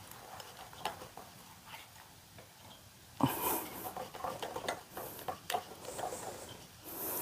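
Thick brown butter icing being stirred in a glass measuring cup, the utensil clicking and scraping lightly against the glass. A few faint clicks at first, then busier from about three seconds in.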